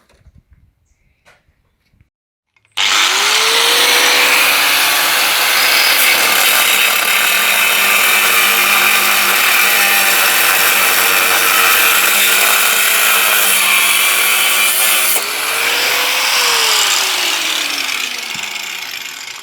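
A handheld power tool's electric motor starts about three seconds in, rising quickly to speed, and runs loud with a harsh high hiss, its pitch wavering as the load changes. Near the end it winds down, the motor pitch falling steadily.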